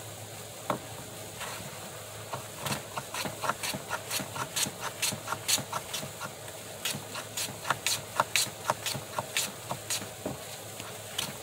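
Hand plane taking quick, short strokes along a narrow wooden board, about three swishes a second, starting a couple of seconds in. The iron is set for a light cut.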